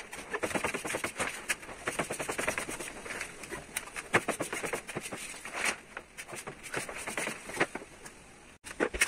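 Carbon-fibre vinyl wrap film and its paper backing liner crackling and crinkling as the sheet is handled, pulled back and laid over the car roof: a dense run of sharp, irregular clicks and crackles.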